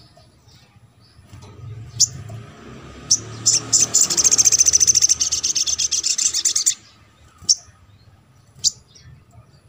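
Olive-backed sunbird calling: a few sharp, high single chirps, then a fast, high trill lasting about three seconds, followed by more single chirps.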